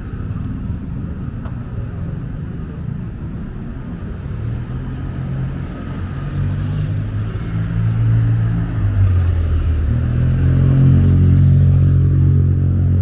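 A motor vehicle's engine running close by over street noise, a low hum that grows louder about halfway through and stays loud.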